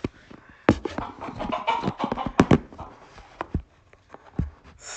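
Rustling and scuffling with several sharp knocks and taps, as a silkie chicken moves about on a blanket and is handled.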